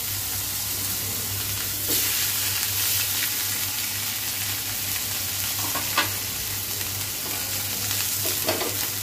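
Masala-coated koi fish (climbing perch) sizzling in hot mustard oil in a frying pan, a steady frying hiss. About two seconds in the sizzle grows louder as a second fish goes into the oil, and a spatula clicks sharply against the pan a couple of times later on.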